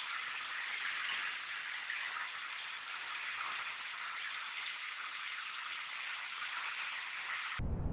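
Steady rain falling, an even hiss with no distinct drops standing out. Just before the end it cuts suddenly to a much louder low rumble.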